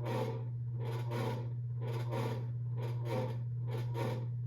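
A 52-inch Evergo hugger ceiling fan running noisily. A steady low hum carries a rhythmic scraping rub that repeats roughly twice a second.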